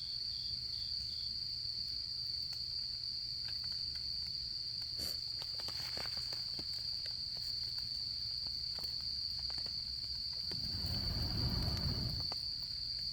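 Autumn crickets trilling in one steady high note, with a second insect chirping in short pulses for about the first second. Campfire wood crackles and pops now and then, and a low rushing noise rises and fades from about ten to twelve seconds in.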